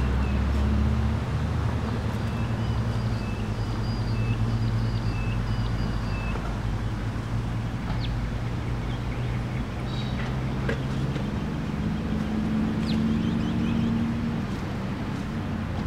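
An engine running steadily at low speed, its hum shifting a little in pitch, with bird chirps in short runs over it.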